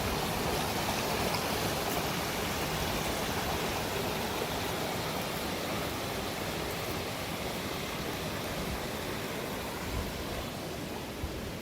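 Steady rushing of a flowing stream, easing slightly toward the end.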